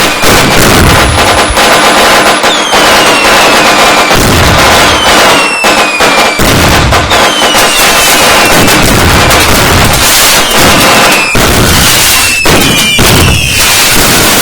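A dense, very loud fireworks barrage: continuous crackling and bangs. About eight whistling fireworks come one after another, each a whistle that falls in pitch.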